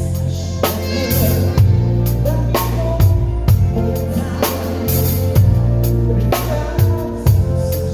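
Drum kit played along to a song's backing track: kick, snare and cymbal hits over steady bass and sustained chords.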